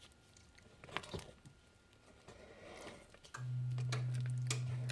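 A few faint knocks against a mixing bowl, then about three and a half seconds in a stand mixer's motor switches on and runs with a steady low hum.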